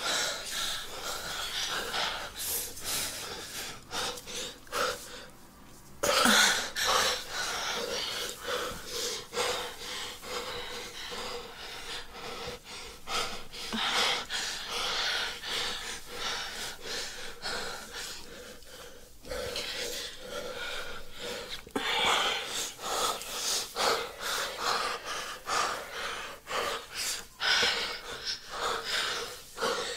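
A person breathing heavily and wheezily in irregular, uneven breaths, with short pauses.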